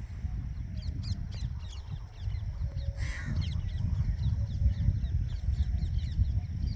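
Many birds chirping with quick short calls and one harsh call about three seconds in, over a loud low rumbling noise.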